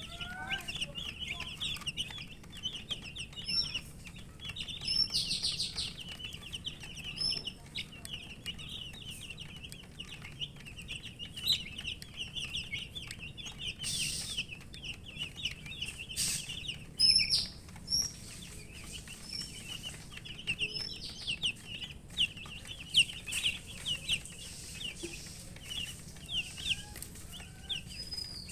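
A group of baby chicks peeping continuously, many short high chirps overlapping, with a few sharp knocks partway through. The uploader takes the chirping for thirst, a call for drinking water.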